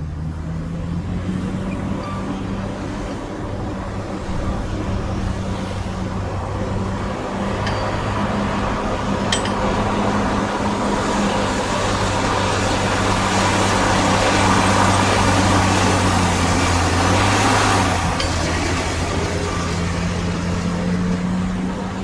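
Heavy diesel earthmoving machinery running steadily. Its noise builds about a third of the way in, is loudest for several seconds, then drops back a little before the end.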